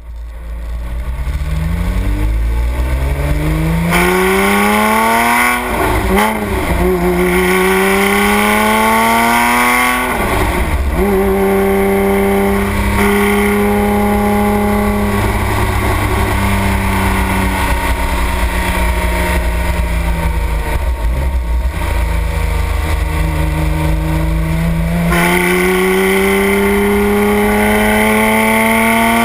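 Porsche 997 GT3 RS's naturally aspirated flat-six, fitted with an aftermarket X-Ost exhaust and heard right at the tailpipes. It revs up through the gears, with the pitch dropping at shifts about 6 and 10 seconds in. It then holds a steadier pitch with brief dips, and climbs again near the end.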